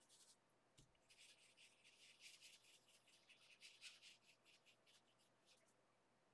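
Faint, soft scratching of a small paintbrush laying acrylic paint onto canvas paper, a run of short, irregular strokes.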